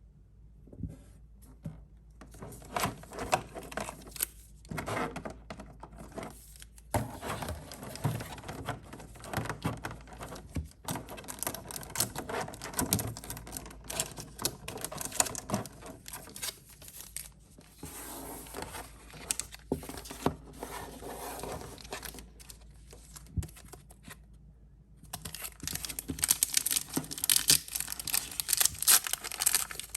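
Crinkling, rustling and tearing of a Pokémon trading card collection's packaging being handled and opened, with scattered light clicks. It grows louder and denser about 25 seconds in.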